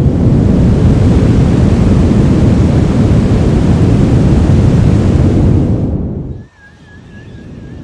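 Large waterfall's loud, deep, steady rush of falling water, cutting off abruptly about six and a half seconds in. Quieter forest ambience follows, with a wavering high trill.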